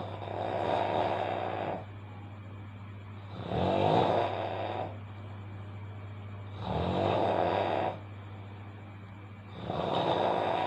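A person snoring loudly in sleep: four long snores about three seconds apart, each lasting around a second and a half, over a steady low hum.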